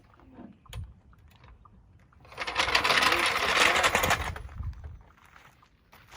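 Impact wrench hammering in a rapid rattling burst of about two seconds, winding the jack down to lower the car onto its new tire.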